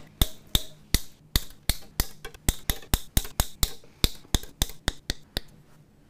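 Fret wire being snipped into short lengths with fret cutters: a quick, uneven series of about twenty sharp snips, three to four a second, stopping about five and a half seconds in.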